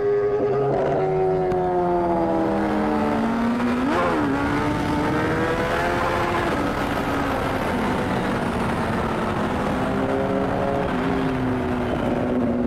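Kawasaki Z900's inline-four engine under hard acceleration, heard from the rider's seat. Its pitch climbs for about four seconds, a quick gear change follows, and then it holds and falls away as the bike slows, with wind noise over the microphone.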